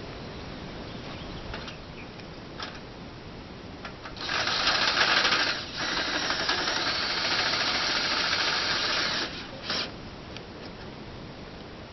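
Small handheld power tool run in two bursts, one of about a second and a half and then one of about three and a half seconds, followed by a brief blip, while he works at the mill's rail.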